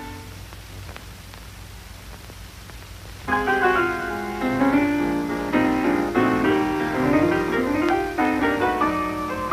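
Piano music: a held chord fades away, and after a pause a piano starts about three seconds in, playing quick runs of notes.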